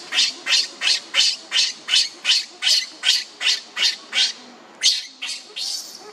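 Newborn baby macaque crying in distress: a rapid run of short, high-pitched cries, about three a second, breaking off briefly near the end before resuming more softly. It is crying at being left on the ground as its mother walks away.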